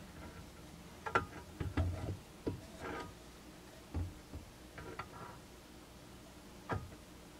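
Scattered light clicks and knocks, about eight of them, as a chainsaw's crankshaft fitted with a degree wheel is turned by hand toward bottom dead center and metal and plastic parts are handled on the bench.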